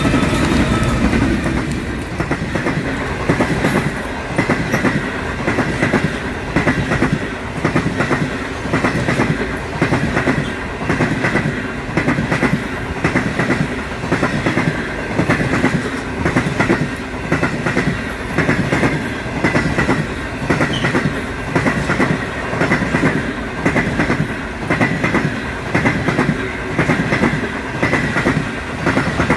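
The Indian Pacific passenger train passing close by. First the diesel locomotives' engines, then the long rake of stainless-steel carriages rolling past, with a steady clickety-clack from the wheels at about one beat a second.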